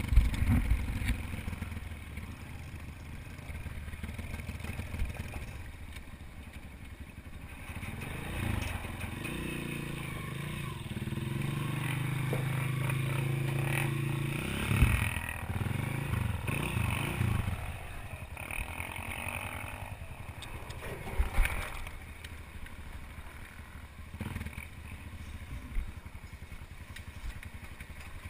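Dirt bike engine heard from the rider's helmet, its pitch rising and falling with the throttle and held steady for a few seconds around the middle. Several sharp knocks and some clatter come through along the way, the loudest near the start, about halfway, and around three quarters of the way in.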